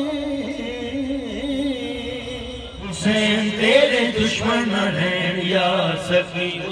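A man's voice chanting Islamic devotional verse (manqabat) through a microphone and loudspeakers in long, held, melismatic lines. About three seconds in, the sound cuts abruptly to a brighter, closer take of the same kind of chanting.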